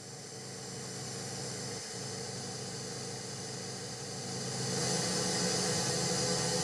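Television static: a steady hiss over a low electrical hum, swelling gradually louder, the high hiss strongest near the end.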